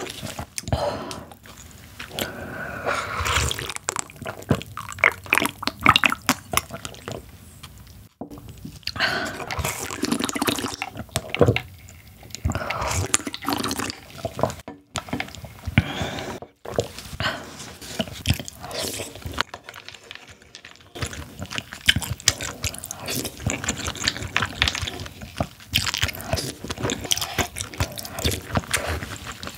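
Close-up eating sounds: slurping and sipping water-soaked rice from a wooden bowl, with wet chewing and mouth clicks.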